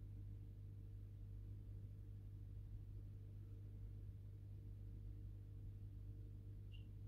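Faint, steady low hum of aquarium pump equipment, with one brief faint high chirp near the end.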